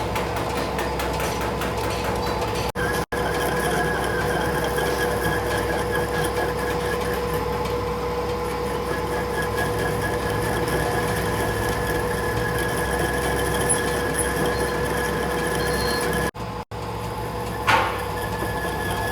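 Workshop machinery running steadily with a steady hum and a high whine over dense mechanical noise. It cuts out briefly twice, and there is a sharp knock near the end.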